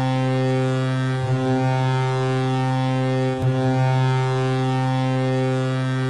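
Colorado Avalanche goal horn sounding one long, deep, steady blast of several tones together. It wavers briefly about a second in and again near three and a half seconds.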